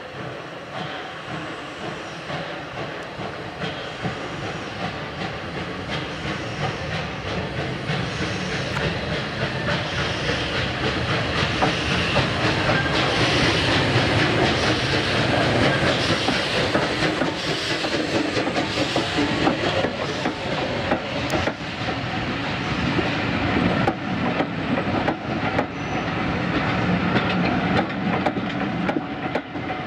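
Bulleid West Country class steam locomotive 34092 City of Wells, a three-cylinder Pacific, working past with its exhaust growing louder as it approaches and loudest about halfway through as the engine goes by. After it come the coaches, their wheels clicking over the rail joints.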